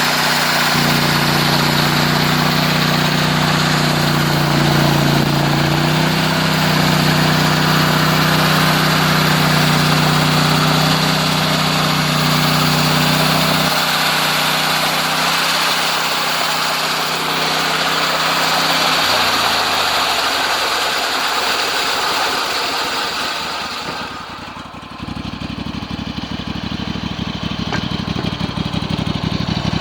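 Engine of a home-built sawmill running under steady power. Its pitch steps up about a second in and again a few seconds later, drops back, then dies away about two-thirds through. Near the end a lower, rougher engine rumble comes in suddenly.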